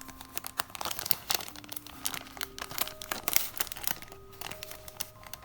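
Paper and plastic packaging crinkling and rustling in irregular crackles as an envelope is handled and pulled out.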